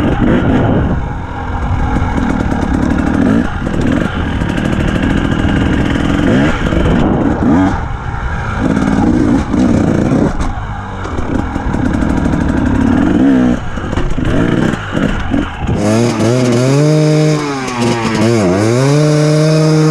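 Enduro dirt bike engine revving up and down while riding over dirt track, mixed with a heavy rumble. About sixteen seconds in the rumble drops away and the engine note comes through clearly, dipping and then rising again.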